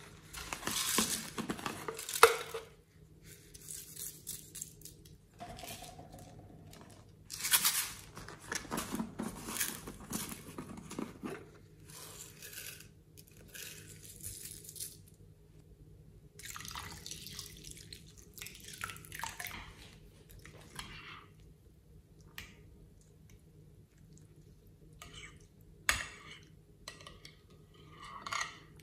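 Wet slime and liquid sounds in a glass bowl: a soft plastic toy squished in the hands over the slime, liquid poured from a bottle onto sequins and glitter, then the mix stirred with a stick, with a few light clicks near the end.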